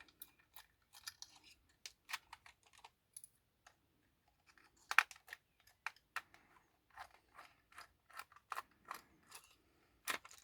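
Faint, irregular small plastic clicks and scrapes as a Bachmann class 47 model locomotive is handled and its body shell worked loose from the chassis, with a sharper click about five seconds in and another near the end.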